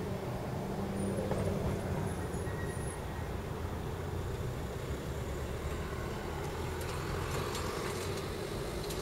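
Steady low rumble of distant engines, with a few faint clicks in the last couple of seconds.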